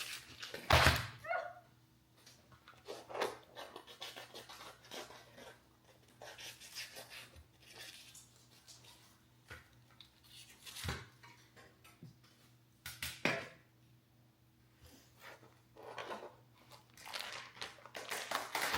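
A plastic package of bacon being torn open and handled: scattered crinkling and tearing noises with clicks and knocks in between, the loudest about a second in.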